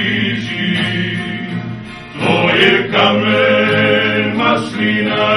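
Music: a Croatian patriotic song, sung voices over instrumental accompaniment.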